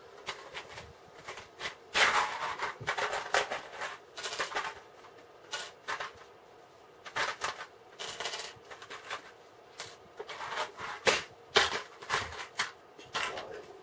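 Small plastic building bricks clattering and clicking as they are handled by hand, in irregular bursts of rattling with single sharp clicks.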